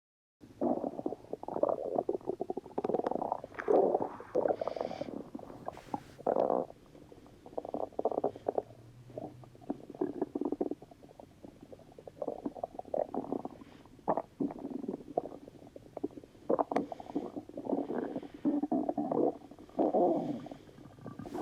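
Fake stomach rumbling dubbed in as a sound effect: a long run of irregular gurgles coming in clusters with short pauses between them.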